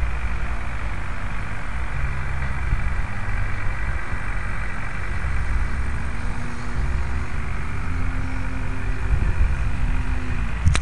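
Wind rushing and buffeting over a small camera's microphone, a steady loud hiss with uneven low rumbles, under a faint whine that glides up and down in pitch in the second half.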